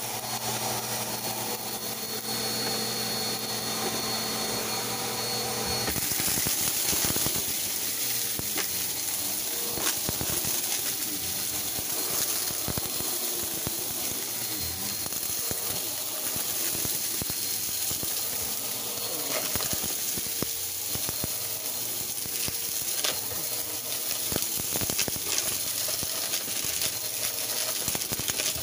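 Bissell PowerForce upright vacuum cleaner running over carpet, sucking up a spilled mix of small bits that click and rattle up through the nozzle into its clear bin. The steady motor hum turns into a brighter, hissier rush about six seconds in.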